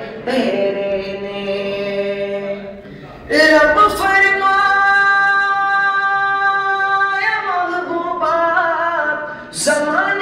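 Unaccompanied male voice chanting the darood (salawat on the Prophet) into a microphone, in long flowing sung phrases. After a short pause about three seconds in, one note is held for about three seconds.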